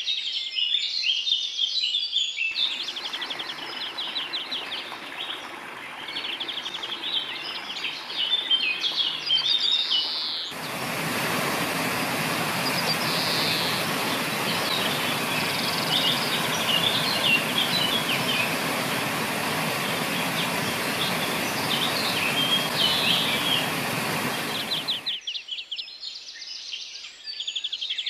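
Songbirds chirping and trilling throughout, over the steady rush of water pouring over a low stone weir, which comes in loud about a third of the way through and stops abruptly near the end.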